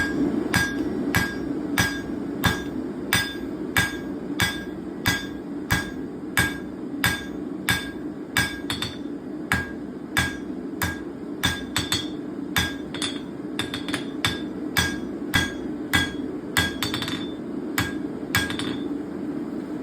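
Hammer blows on hot 3/16 by 3/4 inch steel flat bar, cross-peening a forged leaf: a steady run of about two ringing strikes a second that stops shortly before the end.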